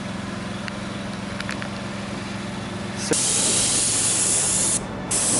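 Paint sprayer spraying roof coating: a steady machine hum, then about three seconds in a loud, even spray hiss starts as the gun is triggered, with a brief break near the end.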